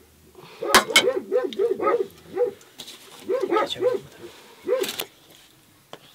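A dog barking in quick runs: about seven barks in the first couple of seconds, three more a little later and a last one near the end. A couple of sharp clinks sound about a second in.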